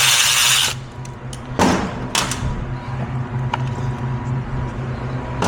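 Cordless power tool spinning out ignition coil bolts, stopping under a second in, followed by a couple of sharp knocks and light clicks as the bolts and coil are handled.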